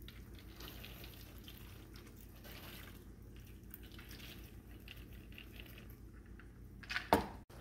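Lentils poured into a pan of chickpeas and tomatoes: a faint, wet pattering over the pan's low simmer, with a brief knock near the end.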